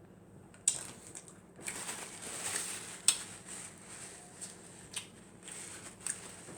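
Mouth crunching and chewing a whole wheat Ritz cracker topped with tuna salad: a few sharp crackling snaps between stretches of soft, wet chewing.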